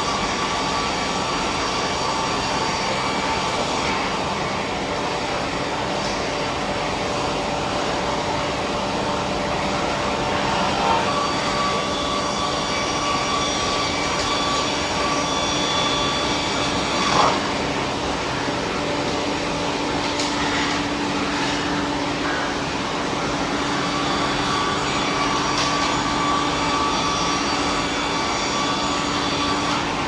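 Sawmill line machinery running steadily: a Perun multi-blade circular saw machine and its roller conveyors give a continuous hum and whine. Two brief, sharper sounds stand out about eleven and seventeen seconds in.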